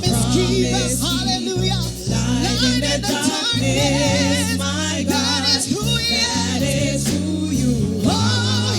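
Live gospel worship music: voices singing wavering, drawn-out lines over held chords.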